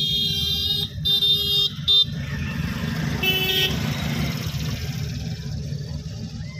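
Car being driven on a wet road, heard from inside the cabin: a steady low rumble of engine and tyres, with a short car-horn toot about three seconds in. A high, steady tone sounds over the first two seconds, breaking off a few times before it stops.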